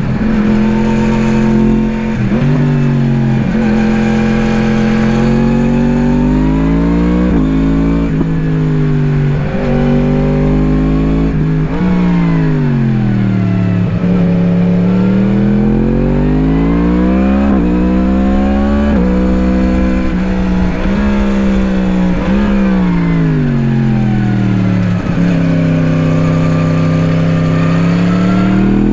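2017 Yamaha MT-10's crossplane inline-four through an Akrapovič slip-on exhaust, heard onboard while riding hard: the engine pitch climbs under acceleration and falls back again and again, with several brief breaks at gear changes.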